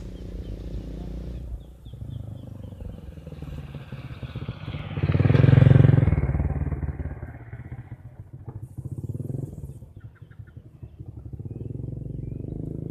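A small vehicle engine runs steadily, and one vehicle passes close by, growing loud about five to six seconds in and fading away again.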